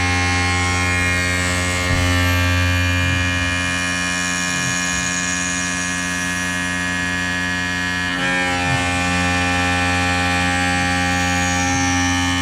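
Tormach 770M CNC mill's spindle running at 5500 rpm while the end mill cuts 6061 aluminum dry: a steady hum with a high whine of several tones over it. The tone wavers briefly about eight seconds in, then settles again.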